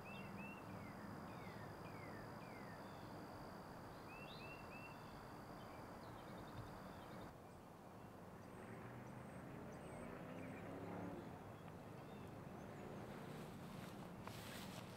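Faint outdoor ambience: a low steady rumble with bursts of small bird chirps, three or four quick chirps at a time, at the start and about four seconds in. A thin steady high tone runs underneath and stops about seven seconds in, where the background changes abruptly.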